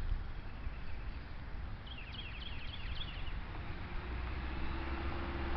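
Faint outdoor background noise with a short series of quick, high bird chirps about two seconds in, then a faint low steady hum from a little past the middle.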